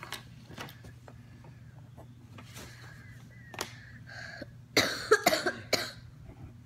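A boy coughing several times in a quick burst, about two-thirds of the way in. Before it come a few faint clicks and taps, and a low steady hum runs underneath.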